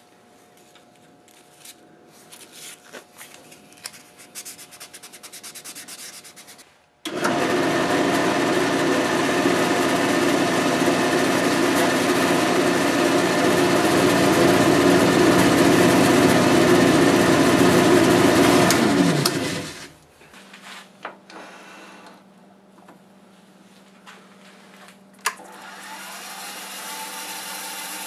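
Drill press running while its bit bores the stem hole into the top of a cherry-wood apple, then winding down with a falling pitch when switched off. Light handling clicks come before it, and a lower steady machine hum starts near the end.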